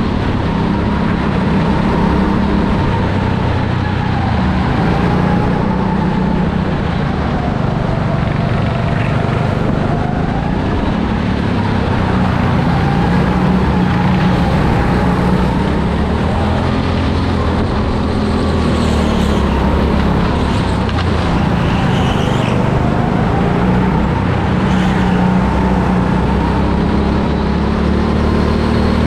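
Go-kart engine heard from on board at race pace, its pitch rising and falling every few seconds as the kart accelerates out of the corners and slows into them.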